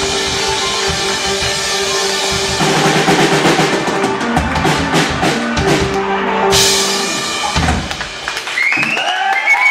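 Live rock band playing the last bars of a song: a held guitar chord, then the drum kit comes in loud about two and a half seconds in with rolls and a cymbal crash, and the song ends on a final hit about eight seconds in. Audience cheering and whistling starts right after.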